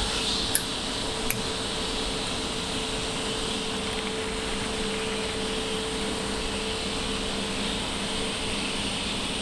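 Steady machine-shop hum and whir, with two light metallic clicks in the first second or so.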